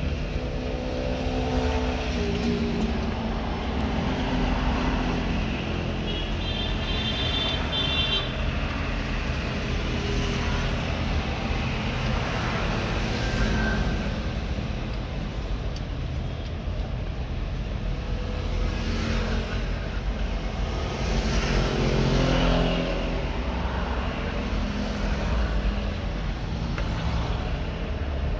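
Steady low rumble of a car, heard inside its cabin.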